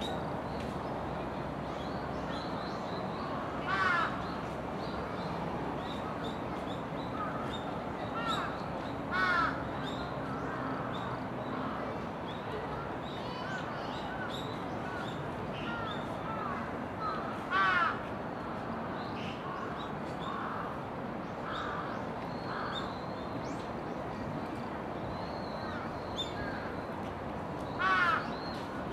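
A crow cawing four times, several seconds apart, over steady background noise with scattered faint chirps from small birds.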